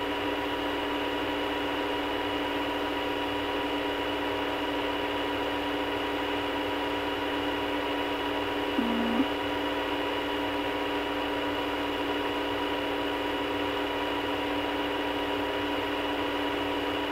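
Steady hiss and hum of an open, recorded telephone line with the caller on hold, with a short blip about nine seconds in.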